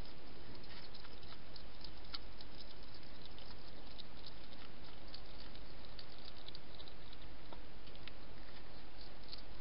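Wild hedgehog feeding at a dish close to the microphone: irregular small clicks and smacks of its chewing, heard over the camera's steady hiss.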